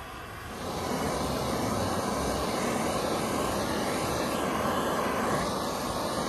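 Hand-held gas blowtorch flame burning steadily, louder from about half a second in.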